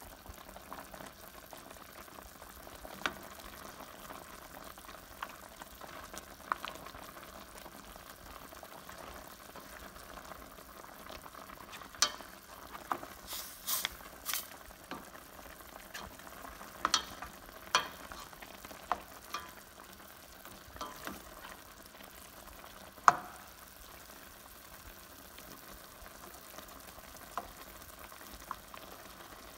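Chicken adobo simmering in soy-vinegar sauce in a stainless steel pan, a steady low bubbling hiss, with a spoon stirring and knocking against the pan now and then; the knocks cluster in the middle and the loudest comes about three-quarters through.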